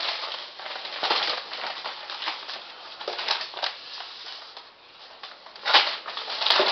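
Packaging being handled and opened: irregular rustling and crinkling of wrapping, with a louder rustle near the end.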